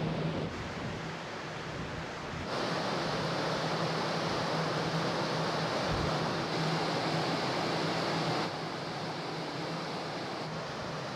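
Steady rush of wind and sea water along a moving ferry's hull on the open deck, with wind buffeting the microphone and a faint steady low hum from the ship underneath. The noise jumps louder a couple of seconds in and drops back about three-quarters of the way through.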